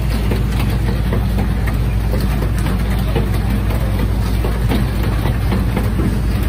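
Steady low hum of running machinery, like an idling engine, with faint scattered clicks and clatter over it.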